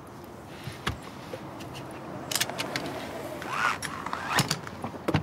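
Sharp clicks and rattles of things being handled inside a car, some in quick clusters, with a short rising squeak about three and a half seconds in.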